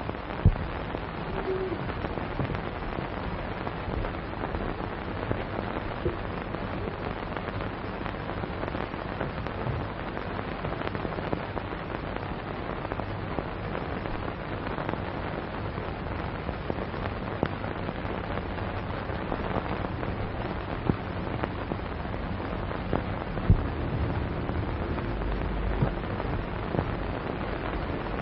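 Steady hiss and crackle of an old optical film soundtrack, with a few sharp pops scattered through it.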